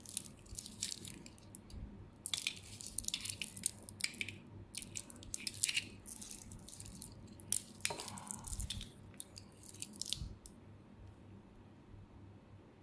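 Metal watch bracelet links clinking and rattling in the hand as steel-and-gold watches are picked up and handled. The clicks come in quick clusters and stop about ten and a half seconds in.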